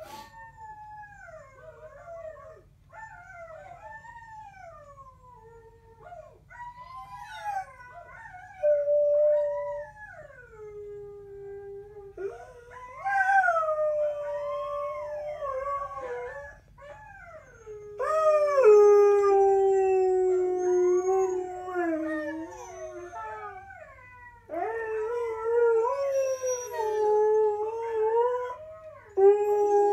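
Two Siberian huskies howling together: long, wavering howls that slide up and down in pitch. The howls are softer at first and grow louder after about twelve seconds, where the two voices overlap.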